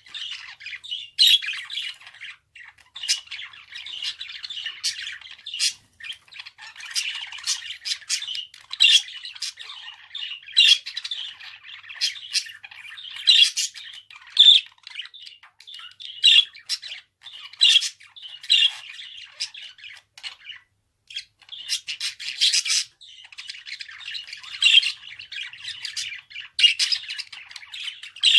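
Budgerigar warbling and chattering: a fast, continuous run of chirps, clicks and sharp squawks, broken by brief pauses.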